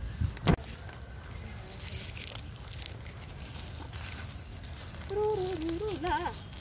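Young rhesus macaques moving over dry leaf litter, with scattered rustling and a sharp knock about half a second in. About five seconds in, a wavering, pitched call lasts just over a second.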